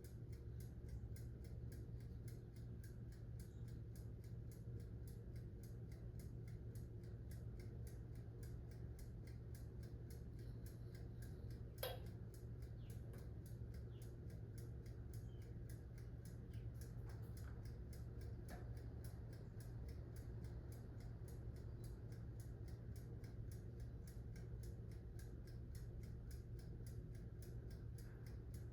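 Toaster oven's mechanical dial timer ticking steadily and faintly, several ticks a second, over a low steady hum from the running oven. One sharper click about twelve seconds in.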